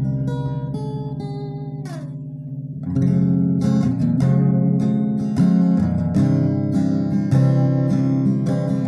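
Acoustic-electric guitar played through its built-in preamp into a small audio mixer. It opens with a few ringing plucked notes, one sliding down in pitch about two seconds in, then changes to strummed chords from about three seconds in.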